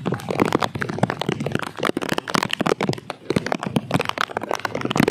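Rain falling, heard as a dense, irregular patter of many close drop hits.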